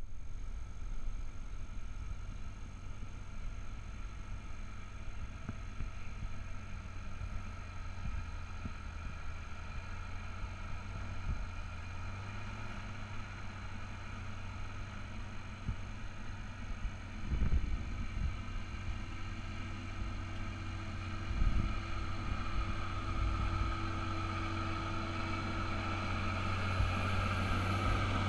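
Massey Ferguson 7495 tractor's six-cylinder diesel engine running steadily as it pulls a land leveler, growing louder over the last few seconds as the tractor comes close. Two brief low bumps come about two-thirds and three-quarters of the way through.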